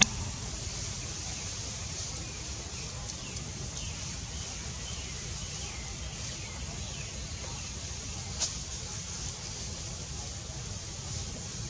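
Steady outdoor background hiss with a low rumble, faint short chirps about four seconds in, and a single sharp click about eight and a half seconds in.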